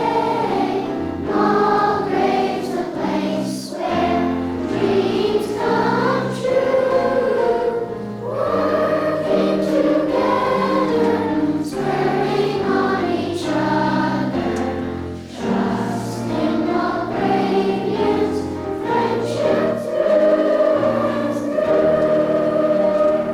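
A group of voices singing a song together over an instrumental accompaniment, holding long notes that change every second or so.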